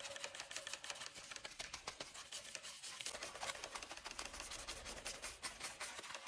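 Detailing brush scrubbing a foam-covered alloy wheel: a fast, faint run of scratchy bristle strokes.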